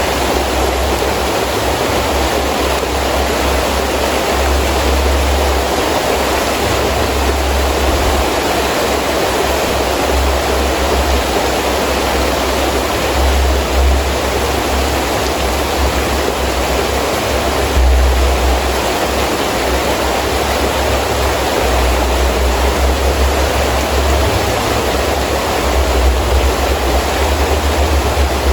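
Heavy rain falling steadily as an even hiss, with gusting wind adding a low rumble that swells and fades every few seconds.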